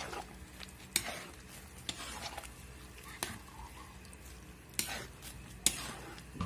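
Stir-frying pancit noodles and shredded vegetables in a large metal wok: a metal utensil scrapes and knocks against the pan six or seven times at irregular intervals as the food is tossed.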